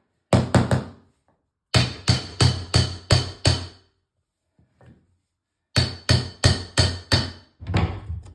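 Claw hammer striking a steel laminate-flooring pull bar, knocking a laminate board's end joint tight against the wall. Sharp metallic blows come in quick bursts of several, about three a second, with short pauses between bursts.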